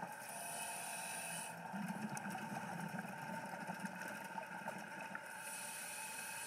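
Faint underwater ambience: a steady low drone with scattered small clicks and crackles.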